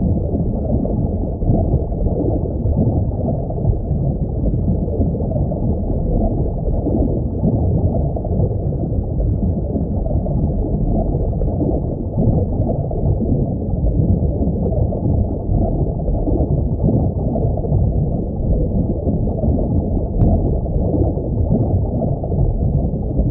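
Aquarium water noise: a steady, muffled low rumble of bubbling and gurgling water, with a faint click near the end.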